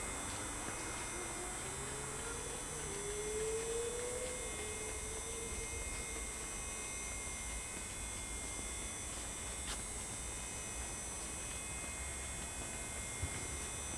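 Steady electrical hum and hiss, with a faint tone gliding upward in pitch for a few seconds near the start.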